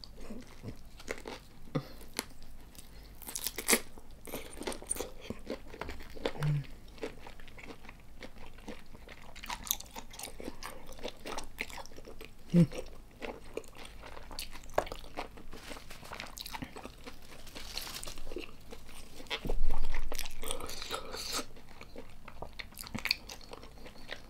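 Close-miked eating of soy-sauce-marinated raw tiger prawn: wet biting and chewing with irregular crunches and clicks, and a louder thump about twenty seconds in.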